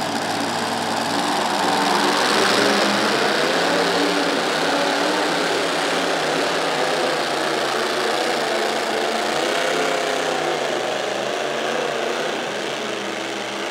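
Pulling tractor's engine running hard at high revs, its note wavering up and down. It grows louder over the first couple of seconds, holds steady and eases slightly near the end.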